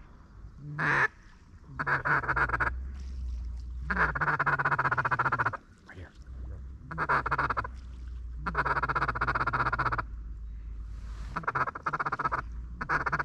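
Duck quacking in about seven loud runs, each lasting under a second to a second and a half, with a low steady rumble underneath.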